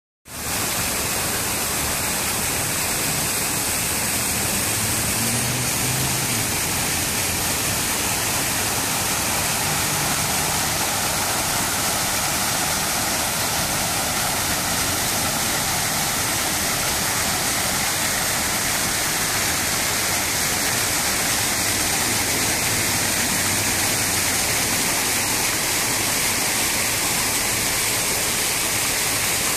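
Jets of a fountain splashing down: a steady, even rush of water.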